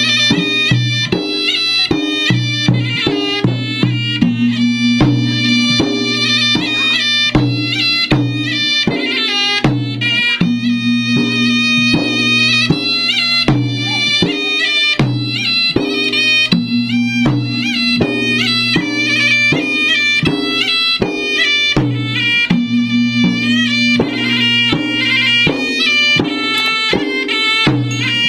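Traditional Bugis-Makassar gendang drum music: gendang drums beating a dense, driving rhythm under a reedy wind instrument playing a continuous ornamented melody.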